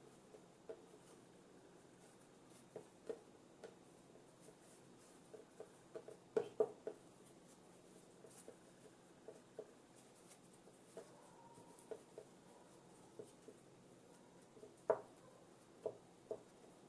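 Faint, scattered soft taps and rubbing of hands braiding and pressing strands of bread dough on a floured work surface, with a few louder taps about six and a half seconds in and near fifteen seconds.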